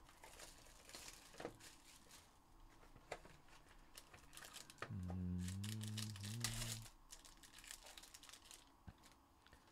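Plastic wrap crinkling and tearing as a trading-card box is unwrapped and opened, then its contents' wrapper rustling in the hands. A man's brief low hum about halfway through is the loudest sound.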